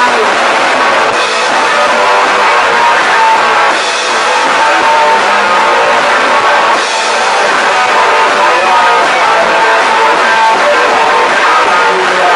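Punk band playing loud, with distorted electric guitar, bass guitar and drum kit.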